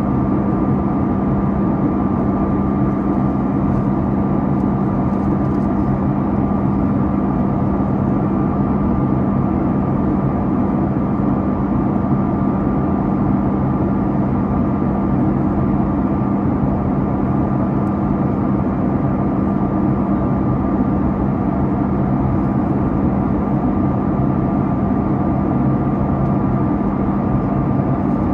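Steady cabin noise of a Boeing 737-8 MAX in flight: the even drone of its CFM LEAP-1B turbofan engines and rushing airflow, with a few steady hums running through it.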